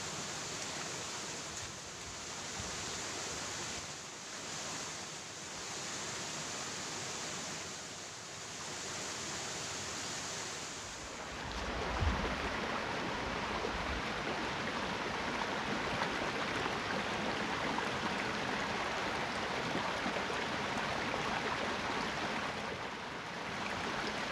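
Shallow rocky stream water running over stones: a steady rushing and gurgling. The sound changes a little about halfway through, with one brief low bump just after.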